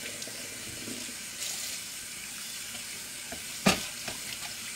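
A steady hiss of kitchen noise, with one sharp knock about three and a half seconds in.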